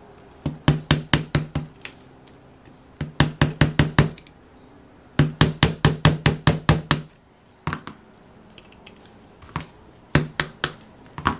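Light metallic taps in quick runs of about six a second, three runs and then a few single taps, as a driver handle knocks the wrist pin out of a piston of an OS FF-240 Pegasus four-cylinder glow engine. The piston has been warmed with a heat gun so that the tight pin comes loose.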